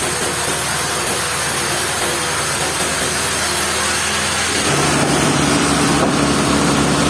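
Sawmill machinery running with a steady engine-like hum; a bit past halfway through it grows louder and settles into a new, higher steady hum.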